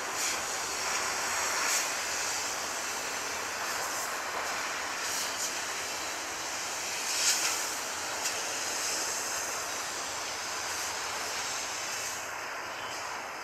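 Distant EMD GT38ACL diesel-electric locomotive running as it hauls a container freight train toward the listener, heard as a steady even drone. A few short high ticks come and go over it, loudest about seven seconds in.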